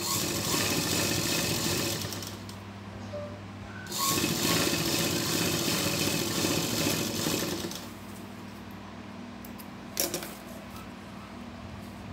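Sewing machine stitching a seam in two runs, about two seconds and then nearly four seconds, with a short pause between. A single sharp click about ten seconds in.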